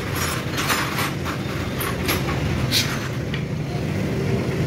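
Steady low background rumble, with short rubbing and scraping sounds from a rag and small metal engine parts being wiped and handled, most of them in the first three seconds.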